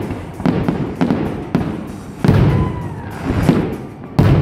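Aerial fireworks going off in a rapid series of bangs and deep booms, about one every half second to second, with the loudest bursts a little past halfway and near the end. Music plays underneath.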